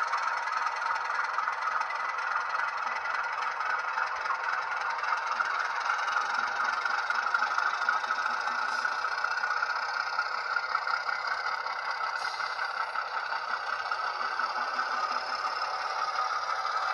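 Model railway diesel locomotive, a Dutch NS 2200-class model fitted with a six-cylinder Alco diesel sound, running steadily while shunting freight wagons. The engine sound from its small speaker is thin, with no bass, and comes with a light rattle and scrape of the wheels on the track.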